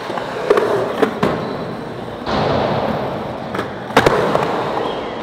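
Skateboard wheels rolling over smooth concrete and onto a ramp, with a steady rumble that grows louder a little over two seconds in. Several sharp clacks of the board are heard, and the loudest comes about four seconds in.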